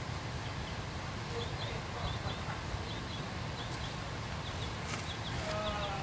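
Masking tape being peeled slowly off painted paper, over steady outdoor background noise, with a bird chirping repeatedly.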